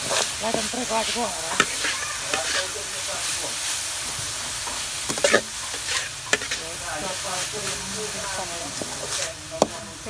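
Sliced lemongrass, chilies and garlic sizzling as they stir-fry in a wok, with a metal spatula scraping and clicking against the pan as it turns them over.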